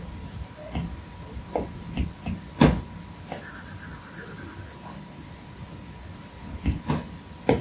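Apple Pencil tip tapping on an iPad Pro's glass screen: a series of light taps, the sharpest about two and a half seconds in and a few more close together near the end.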